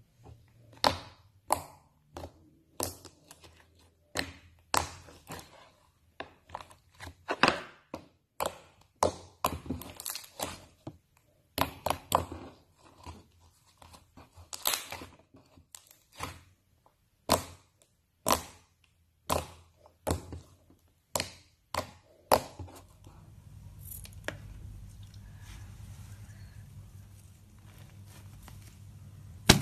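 A series of short, sharp thunks and snaps, about one or two a second, stopping about three-quarters of the way through. A steady low hum follows.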